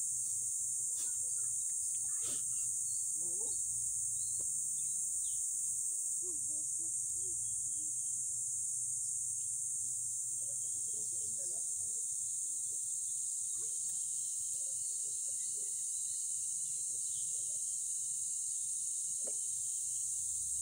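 Steady high-pitched drone of insects, unbroken throughout, with faint distant voices and a few soft taps underneath.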